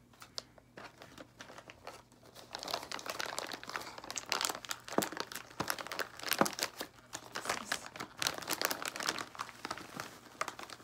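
Clear plastic bag crinkling and tearing as a catheter kit is pulled out of it: irregular crackles, sparse at first and busier from about two seconds in.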